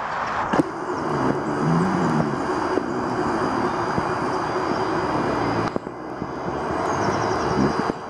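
A motor engine droning over a steady hiss, its pitch sliding up and down.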